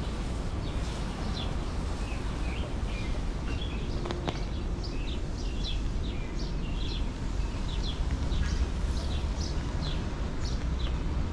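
Small birds chirping, many short quick chirps in a steady run, over a constant low background rumble. A single sharp click about four seconds in.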